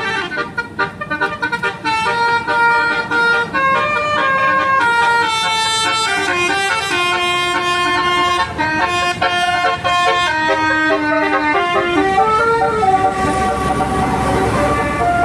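Bus telolet 'basuri' musical horn playing a quick melody, its notes stepping up and down every fraction of a second with several tones sounding together. A low rumble builds near the end.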